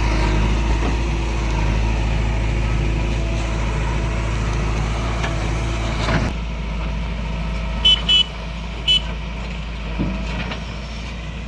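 Heavy diesel machinery running steadily, its sound changing abruptly about six seconds in. Three short high-pitched beeps come around eight to nine seconds in.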